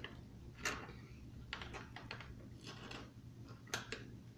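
A dog licking and lapping at a sweet drink, heard as a few irregular small wet clicks and smacks.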